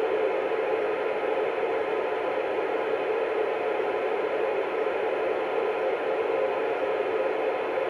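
Alinco DX-SR8 transceiver hissing with steady static from an open 27 MHz FM CB channel, with no station coming through.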